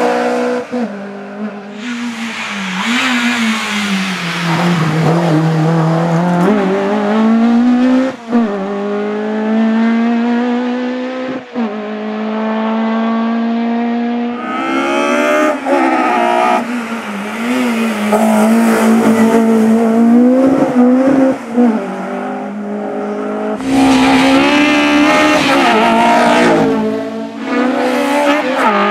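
Honda Civic Type R EP3 race car's four-cylinder engine revving hard under full acceleration. The pitch climbs steadily and drops sharply at each gear change, over several passes of the car.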